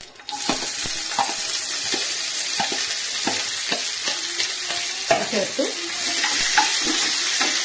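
Sliced onion, tomato and capsicum hitting hot oil in a nonstick pan: a loud sizzle starts suddenly just after the start and keeps going. Short taps and scrapes of a silicone spatula stirring the vegetables come through over it.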